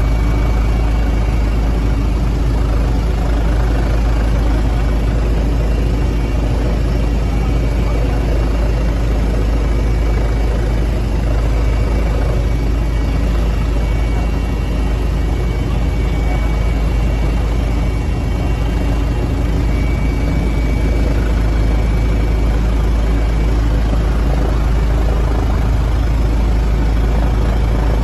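Helicopter cabin noise: the engine and rotor run steadily and loudly, heavy at the low end, with a thin high whine on top.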